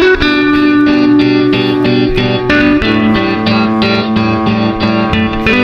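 Background music led by guitar, a steady run of plucked notes.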